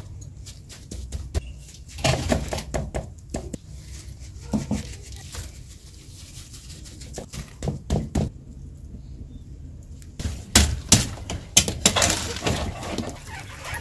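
Gloved hands pressing and patting moist salt dough over a fish in a metal baking tray, with soft squishes, scrapes and light knocks on the tray. About ten seconds in, a wood fire takes over, crackling with sharp, loud pops.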